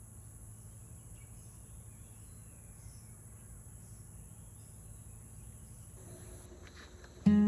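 Garden ambience: a steady high insect trill, typical of crickets, with a few faint bird chirps. Strummed acoustic guitar music starts loudly near the end.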